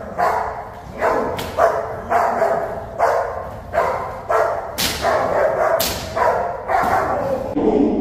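Shepherd-type protection dog on a leash barking at a decoy in a fast, unbroken run of sharp barks, about two a second.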